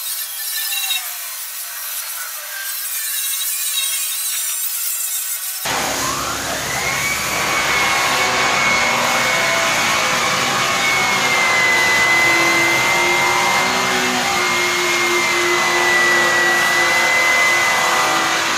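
Handheld rotary polisher with a buffing wheel working polished aluminum. About six seconds in, a polisher motor starts up with a quickly rising whine, then runs steadily with a high whine over the rush of the wheel on the metal.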